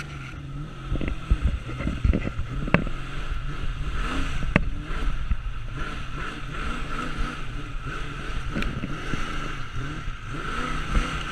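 Car engine revving and running hard as the car is driven across a dry grass field, with heavy wind rumble on the microphone and two sharp knocks a little under two seconds apart.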